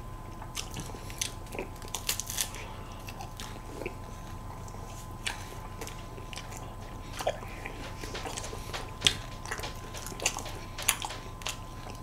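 Close-miked eating of ice cream: irregular wet mouth clicks, smacks and chewing as an ice cream wafer cone and a spoonful of parfait are eaten, the sharpest smack about nine seconds in.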